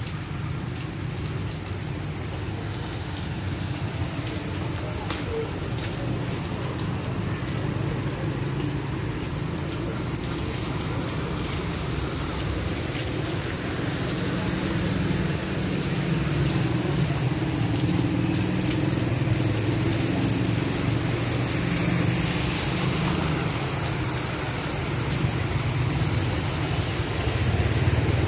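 Heavy rain pouring down as a dense, steady rushing noise, gradually getting louder.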